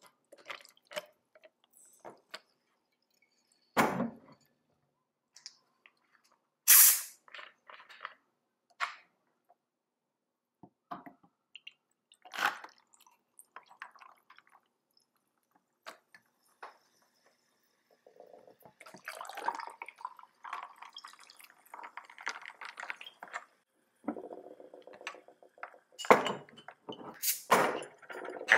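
Whisky and then tonic water poured over ice cubes in tall glasses, with scattered clinks of ice against glass. A longer pour runs through the second half, and several louder clinks of ice and glass come near the end.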